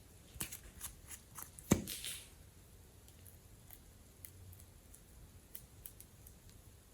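Glossy slime being handled: a quick run of small sticky clicks and crackles with one sharper knock a little under two seconds in, then only faint scattered clicks.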